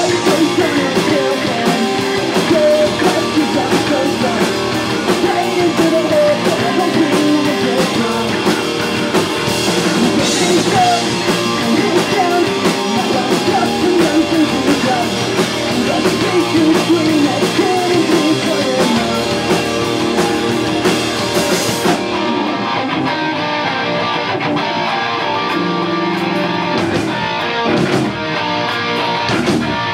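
A live pop-punk rock band playing, with electric guitars, bass and a drum kit. About two-thirds of the way through, the bright high hiss of the cymbals drops out and the playing thins to a lighter, guitar-led passage.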